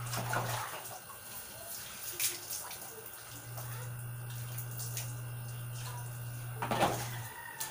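Water poured from a plastic dipper splashing over a bather and onto a concrete floor, once at the start and again, louder, near the end, with quieter water sounds between. A steady low hum sounds underneath for much of the time.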